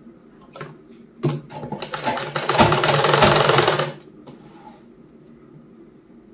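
Sewing machine stitching down a double-folded hem: a couple of brief starts, then about two seconds of fast, continuous stitching that stops.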